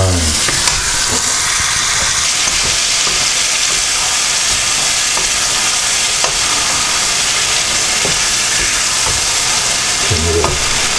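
Food sizzling steadily in a hot frying pan, with a few faint clicks.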